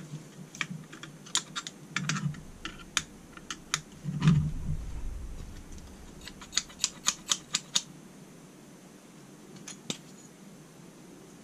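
Small metal clicks and taps of hand tools and parts being handled on an aluminium Holley 4150 carburettor baseplate. A heavier knock with a dull thud comes about four seconds in, and a quick run of about eight clicks follows a couple of seconds later.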